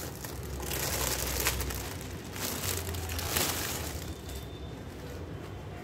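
Clear plastic saree packaging crinkling and rustling as the folded saree is handled and slid out of it. It comes in two main rustling bursts over the first four seconds, then goes quieter.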